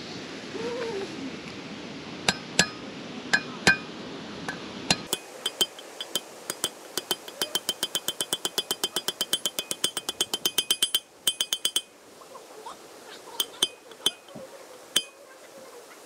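Hammer driving a drift to seat a new grease seal into a Toyota Hilux front wheel hub: metal-on-metal ringing taps. A few single strikes come first, then a fast even run of about five taps a second for five or six seconds, then a few more spaced strikes.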